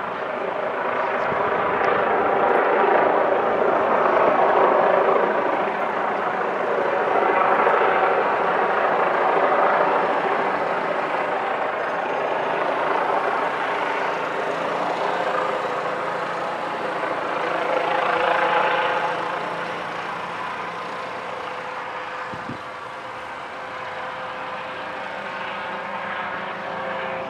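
Twin-engine Airbus Helicopters EC135 flying overhead: steady rotor and turbine noise with a whine running through it, swelling and fading several times and quieter over the last third.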